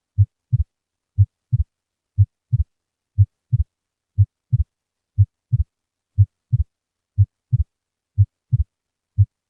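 Normal human heart sounds heard through a stethoscope at the cardiac apex, at 60 beats per minute. Each beat is a pair of short, low thumps about a third of a second apart: the first heart sound, from the mitral and tricuspid valves closing, then the second, from the aortic and pulmonic valves closing. Both sounds are single (unsplit), and the first is slightly louder.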